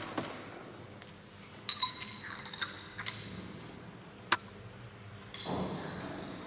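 Light metallic clinks and short high-pitched ringing tones, several times, from a metal holy-water sprinkler being handled and shaken during an aspersion. A short rushing noise comes about five seconds in.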